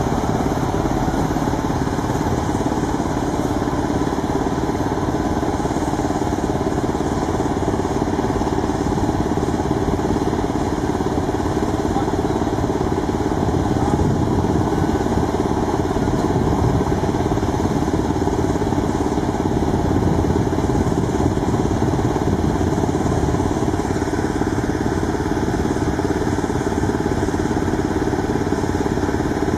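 Engine running steadily at an even speed, with a constant low hum and no changes in pitch or load.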